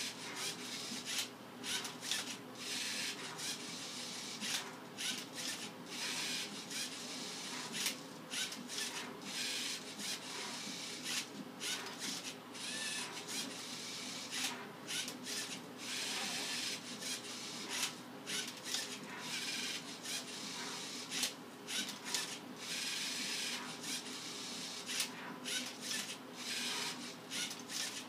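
Lego Mindstorms NXT MindCuber robot at work on a Rubik's cube: its motors whir and the plastic cube scrapes as it is turned and flipped, in short rasping bursts, one or two a second, with no pause.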